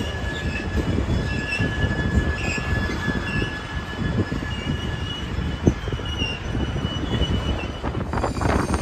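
A freight train's open-top cars rolling past, their wheels rumbling and knocking over the rails. Thin, high-pitched wheel squeal comes and goes, one squeal held for about two seconds a second in.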